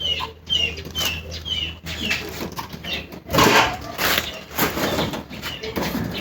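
A small bird chirping over and over, about two short falling chirps a second, which stop about two and a half seconds in. Loud rustling follows about three seconds in, over a steady low hum.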